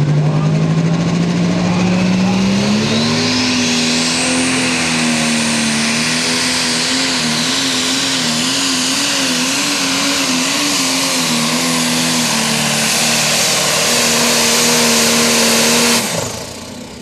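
Super Stock pulling tractor's turbocharged diesel engine at full throttle hauling the sled. Its pitch climbs over the first few seconds with a rising turbo whine, then holds high with a wavering pitch. The sound drops away suddenly about a second before the end.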